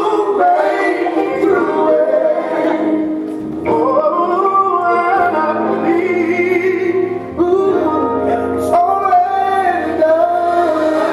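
Recorded gospel song playing loudly, with sustained, melodic vocals over the accompaniment.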